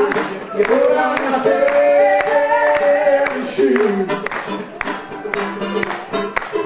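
Live band playing an instrumental passage: a harmonica holds long notes and bends one downward over the first few seconds, over a steady drum beat, then the band carries on without it.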